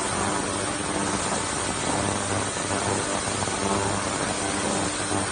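Industrial parts washer running: a steady machine hum under a broad, even hiss.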